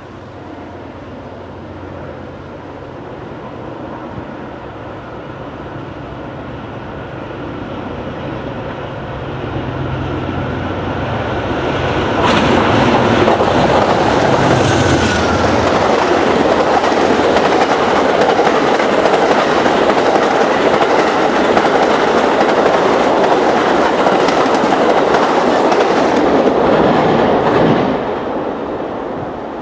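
Amtrak passenger train led by a GE Genesis diesel locomotive approaching and passing at speed. The locomotive's engine drone builds for about twelve seconds, then turns into loud wheel-on-rail noise with clickety-clack as the coaches go by. The noise drops away sharply near the end as the last car passes.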